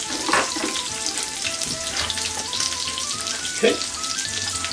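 A Reuben sandwich sizzling in a hot hinged waffle iron on an electric coil burner, with a couple of knocks of a metal spatula against the iron, the louder one a little past halfway. A light background tune plays under the sizzle.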